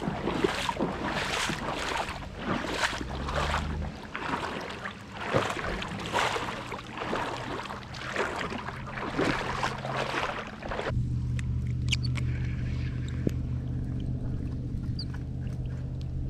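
Footsteps wading through shallow floodwater, a splash and slosh with each stride, about one stride a second. The wading stops suddenly about eleven seconds in, and a steady low hum follows.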